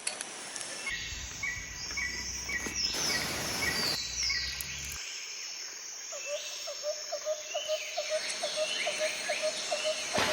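Wild birds singing and calling, with repeated short chirps and falling whistled notes. From just past halfway, a quick even series of lower notes comes at about three or four a second.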